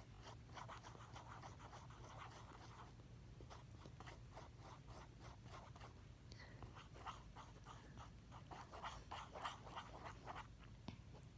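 Faint scraping strokes of a utensil stirring a thick soap mixture in a container, mixing in blue food colouring, quickening to about two to three strokes a second in the second half.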